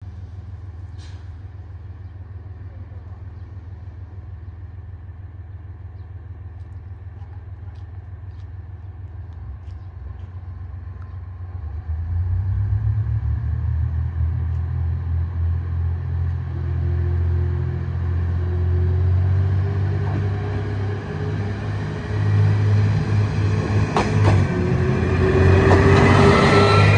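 Two-car KiHa 127 diesel railcar pulling away from a station. Its engines hum low, then get louder about twelve seconds in as it throttles up, with a slowly rising whine as the train picks up speed and draws close.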